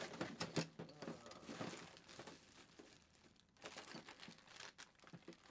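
Hands rummaging through things on a workbench: irregular rustling and crinkling with scattered light clicks and knocks.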